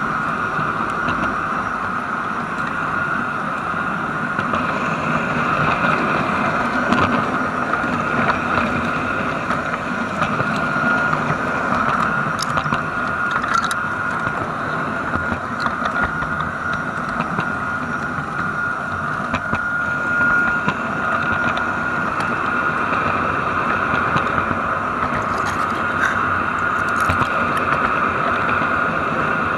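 LGB garden railway train running along its track, heard from the car carrying the camera: a steady high whine over a rattling rumble, with a few brief clicks.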